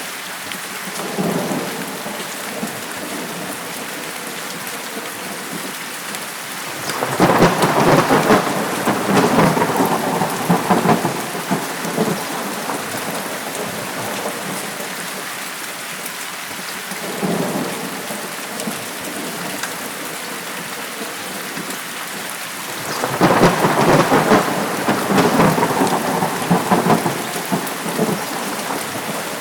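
Steady heavy rain falling, with thunder rolling through it: a faint rumble about a second in, a long loud crackling roll from about seven to eleven seconds, another faint rumble around seventeen seconds, and a second long loud roll from about twenty-three to twenty-seven seconds.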